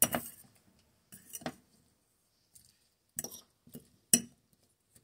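A utensil clinks against a glass mixing bowl about five times while sliced green tomatoes are tossed in a wet milk and hot-sauce coating. The loudest clinks come at the start and about four seconds in.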